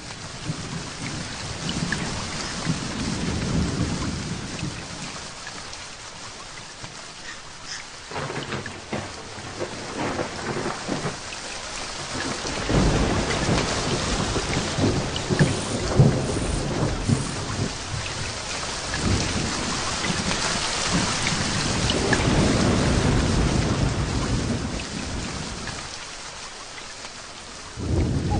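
Tropical storm: heavy rain falling steadily, with long rolls of thunder rumbling underneath. The thunder swells in about halfway through, stays strong for several seconds, and fades away shortly before the end.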